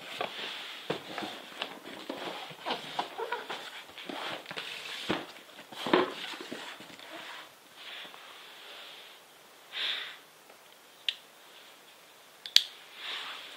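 Hands handling a cardboard parcel wrapped in clear plastic: rustling, scraping and crinkling with scattered sharp clicks, busiest in the first half, then a few short rustles and isolated clicks.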